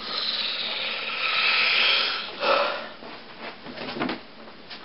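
Rubbing and scraping handling noise close to the microphone as a hand reaches over the camera, for about two seconds. It ends in a short louder scrape, followed by a few soft knocks.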